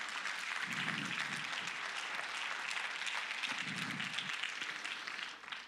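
Congregation applauding with steady clapping that fades out near the end.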